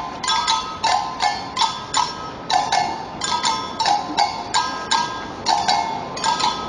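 Samba percussion band playing in a street procession's rhythm: a quick, uneven run of sharp, ringing, high-pitched strikes, about three a second.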